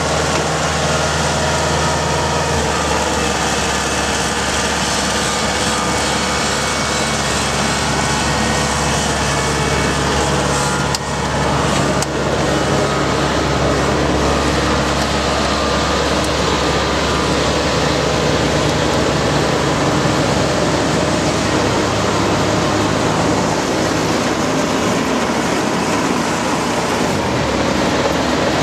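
Large diesel engine running steadily under load, its note shifting slightly a few seconds in, with a brief dip and a knock about eleven seconds in.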